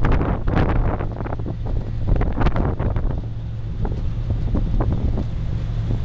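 Wind buffeting the microphone in irregular gusts over the steady low drone of a river cruise boat's engine, heard from the boat's open deck while it is under way.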